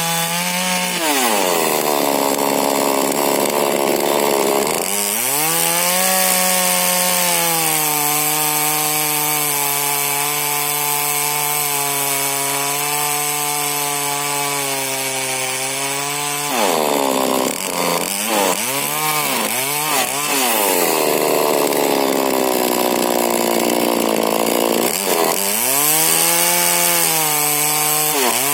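Two-stroke engine of a 40cc Husqvarna chainsaw with a modified exhaust and an 18-inch Stihl bar, running near full throttle. Its pitch sags for a few seconds about a second in and again past the middle, a sign of the engine loading down as the chain cuts wood, with quick throttle dips and recoveries in between.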